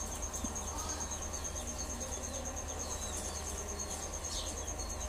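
A cricket trilling steadily in a fast, even pulse at one high pitch, over a low background hum, with faint short chirps scattered around it.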